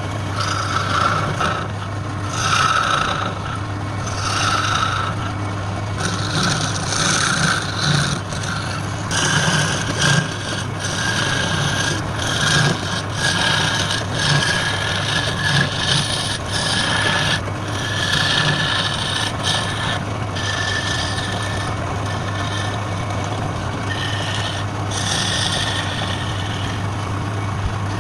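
Wood lathe running with a steady motor hum, while a tool scrapes against the spinning wood in repeated strokes.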